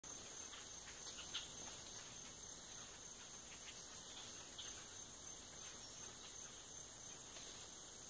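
Steady, high-pitched drone of insects chorusing in the trees, with a few faint short sounds breaking in, the sharpest about a second and a half in.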